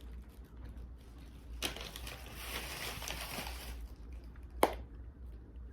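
Close-up crinkling and crunching from eating takeout food, with a brief spell of crinkling about two seconds long and a sharp click near the end.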